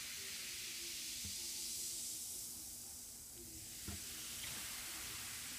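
Baking soda and vinegar fizzing in a bowl: a faint, steady hiss of bubbles bursting as the mixture reacts.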